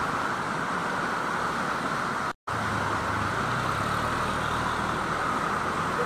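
Muddy floodwater torrent rushing past in a steady, even roar. The sound cuts out for a split second a little over two seconds in, and a deeper rumble joins the rush about a second later.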